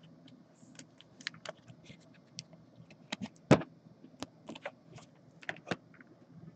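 Light clicks and taps of trading cards and a clear plastic card holder being handled, with one sharper click about three and a half seconds in.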